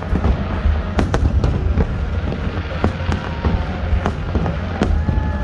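Aerial firework shells bursting in quick succession: a continuous deep rumble of booms with sharp cracks coming about twice a second.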